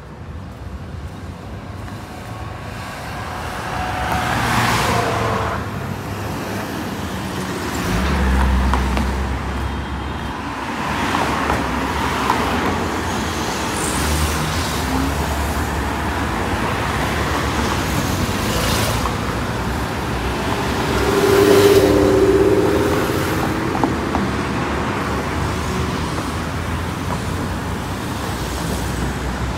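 Busy road traffic at a roundabout: cars driving past one after another, each pass swelling and fading over a steady traffic hum. One pass about eight seconds in carries a strong low engine rumble, and the loudest pass comes a little past twenty seconds.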